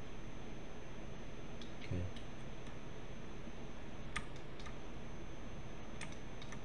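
Several scattered computer mouse and keyboard clicks over steady microphone hiss, the sharpest a little past four seconds in, with a brief low sound about two seconds in.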